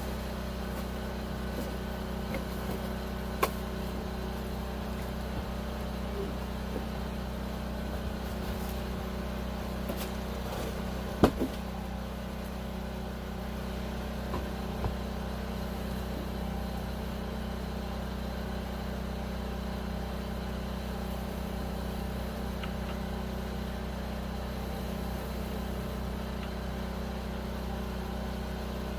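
An engine running steadily, with a few sharp knocks over it, the loudest about eleven seconds in.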